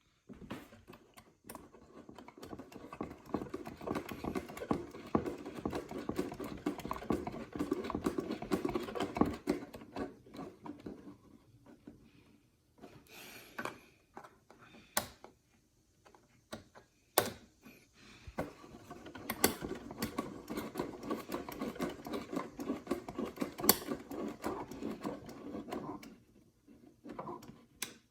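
Crackling static with scattered sharp clicks from a 1957 Zenith AM vacuum tube radio. It comes in two long stretches with a lull between them.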